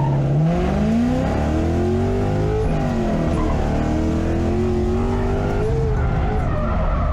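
Drift car engine at high revs, its pitch climbing and dropping several times as the driver works the throttle through a drift, with a hiss of tyre noise over it.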